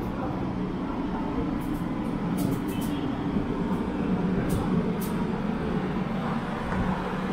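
Steady rumble of city road traffic, cars and vans running past, with a few faint light clicks.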